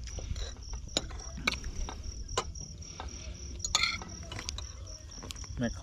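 Insects droning in a steady high tone, with scattered sharp clicks and knocks over a low rumble.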